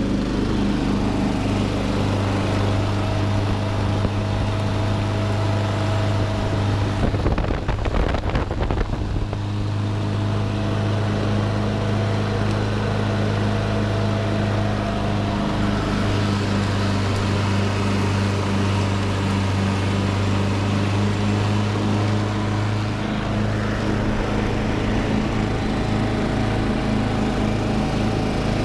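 Cub Cadet Model 80 lawn tractor running steadily while mowing tall grass, with a louder, rougher stretch about seven to nine seconds in.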